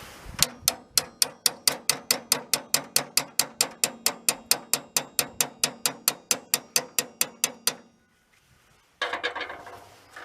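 Rapid, even hammer taps on a metal piece of a VW splitwindow bus's cargo door latch mechanism, about five a second for some seven seconds, with a metallic ring, driving the part further down. A short clatter of handling follows near the end.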